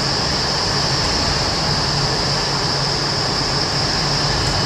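Vertical wind tunnel running at flying speed: a steady roar of rushing air and fans, with a low hum underneath and a bright hiss above.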